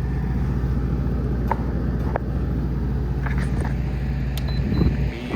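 A 1990s Carrier UC-series / Kenmore Elite 15,000 BTU window air conditioner running, its compressor and fan giving a steady low hum with a few faint clicks. Near the end the low hum drops away and the sound gets quieter.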